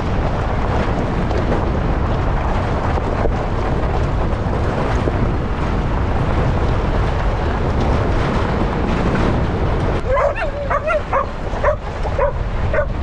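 Steady loud rumbling noise, with a dog yipping and barking several times in quick short calls near the end.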